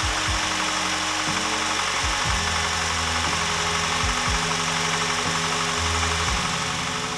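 Background music with a beat and a moving bass line.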